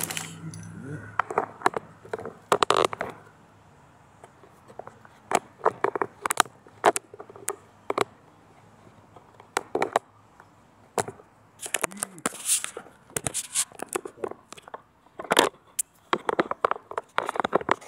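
Irregular metal clicks, taps and scrapes from hand tools working on a valve spring compressor and the compressed valve spring, retainer and keepers of a big-block V8's valvetrain. They come singly and in short clusters, with quiet gaps between.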